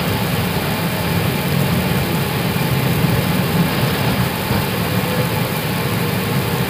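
Steady rumble and hiss of an Airbus A320 flight deck on its landing roll, heard inside the cockpit: engines back at idle and the airliner slowing under manual braking.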